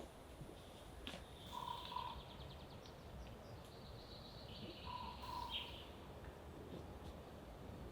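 Quiet forest ambience with birds calling: a short two-note call repeated twice, and a higher rapid trill over it.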